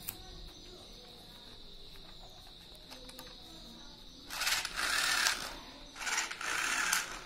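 Two whirring bursts of about a second each, the second starting about a second and a half after the first, as a string wound on the shaft of a small CD-drive motor fitted as a dynamo to a toy pull-back autorickshaw is pulled, spinning the motor and the toy's gear train.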